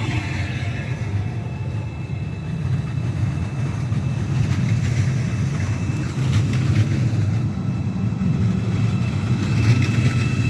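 Train running through the station with a steady low rumble, a run of short clicks in the middle, and a high whine coming in near the end.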